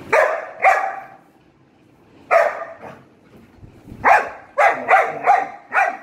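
German shepherd puppy barking: eight sharp barks, two at the start, one about two seconds in, then a quick run of five in the last two seconds.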